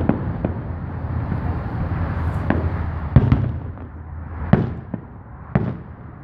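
Aerial fireworks bursting overhead: about seven sharp booms at irregular intervals, the loudest about three seconds in, over a continuous low rumble.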